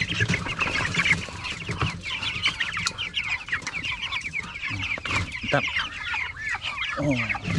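A flock of native chickens clucking and calling together, many short high-pitched calls overlapping without a break.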